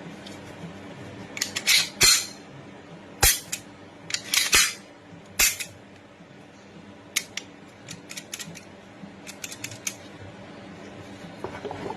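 Sharp metallic clicks and short sliding scrapes from a replica Makarov pistol being handled, the loudest bunched in the first half and lighter clicks further on.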